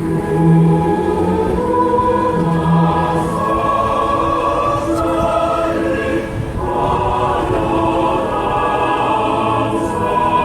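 Choir music: a choir singing slow, long-held notes, with a short break about six and a half seconds in.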